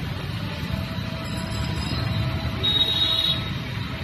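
Road traffic on a wet street: a continuous low rumble of passing vehicles. A thin steady tone runs under it from about a second in, and a brief high-pitched tone sounds about three seconds in.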